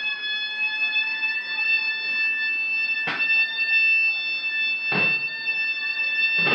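Ceremonial music: a wind instrument holding long high notes, changing note near the end, with a single drum beat about every two seconds.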